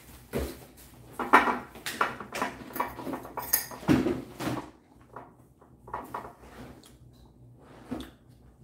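Glass storage jars being handled on a glass tabletop: a run of sharp clinks and knocks, denser in the first half, as a hinged clamp-lid jar is opened.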